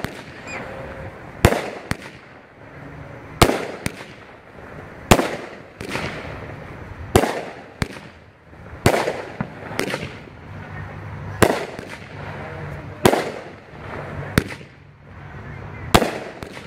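A 16-shot consumer 500 gram fireworks cake (Pyro Planet Diamond Sky) firing shot after shot: a string of sharp bangs about every one and a half to two seconds, each trailing off, with a rough hiss between them as the glittering stars burn out.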